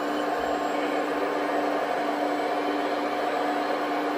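Radio-controlled scale Volvo EC480 excavator working its boom, arm and bucket, its drive making a steady mechanical hum with a constant whine.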